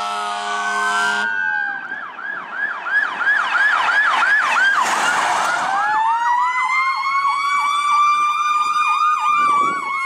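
Fire truck air horn blaring with a rising siren wail, cut off abruptly about a second in. Then electronic emergency sirens yelp in fast, repeated up-and-down sweeps, about two to three a second, over a slower, steady wail.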